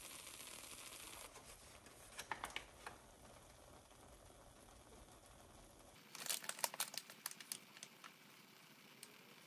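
Two short bursts of crinkling and clicking, like something being handled, about two seconds in and again at about six seconds, over a faint hiss.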